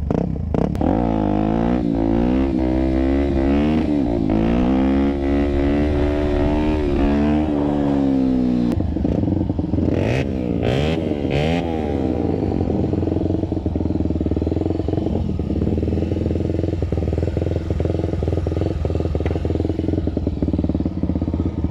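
Dirt bike engine revving up and down while riding. About nine seconds in it drops back, blips the throttle a few times, and then settles into a steady idle in neutral.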